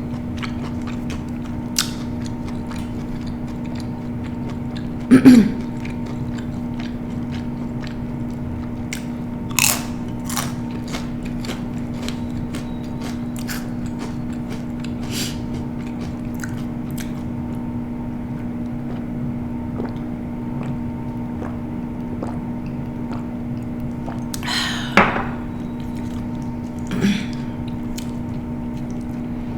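Close-miked chewing and crunching of food, with scattered sharp crunchy clicks and a few louder bites, the loudest about five seconds in. A steady low hum runs underneath.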